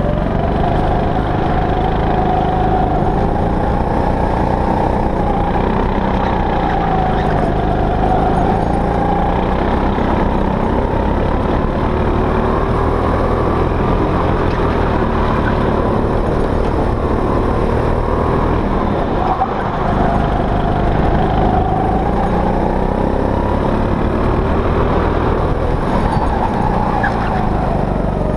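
Go-kart engine running hard on a lap of the track, its note rising and falling with the revs through the corners and straights.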